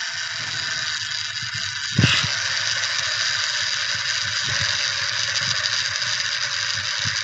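Plastic toy dump truck rolling across a wet concrete floor, its wheels and body rattling with small scattered clicks over a steady hiss, with one sharper knock about two seconds in.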